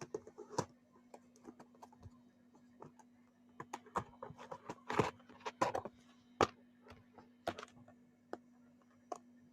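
Sour jelly candy packaging being handled: irregular crinkles and sharp clicks of plastic wrapping, thickest in the middle, then sparse taps near the end.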